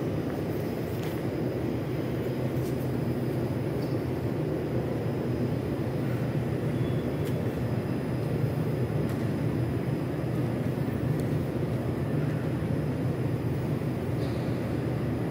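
Steady low hum of an 81-740 metro train standing at the station platform, with its onboard equipment running, plus a few faint ticks.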